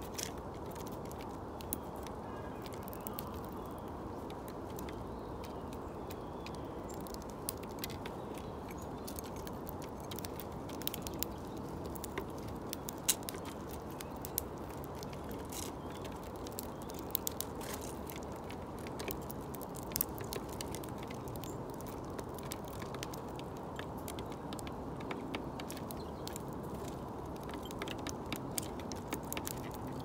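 Birds pecking: many irregular, sharp little clicks and cracks, scattered unevenly, over steady low background noise.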